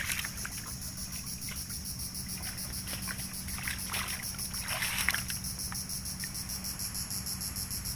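Insects buzzing steadily in a high, rapidly pulsing chorus, with a few light splashes of shallow water from hands working in it in the middle of the stretch.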